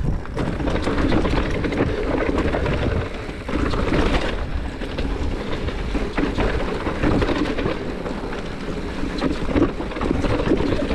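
Mountain bike rolling fast down a dirt and rocky trail: tyres rumbling over the ground, with the bike clattering and rattling over stones and roots.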